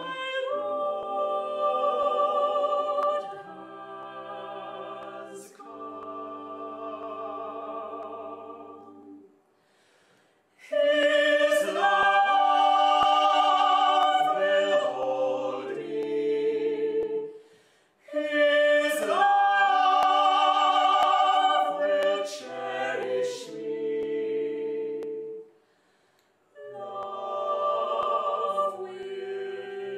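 Vocal quartet of soprano, alto, tenor and bass singing in four-part harmony: slow held chords in phrases, broken by short silences about ten, eighteen and twenty-six seconds in, with the fullest, loudest phrases in the middle.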